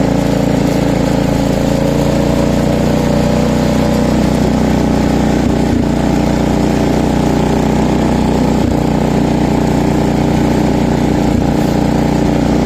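Cub Cadet 126 garden tractor's 12-horsepower single-cylinder Kohler engine running steadily as the tractor is driven, with a few faint knocks.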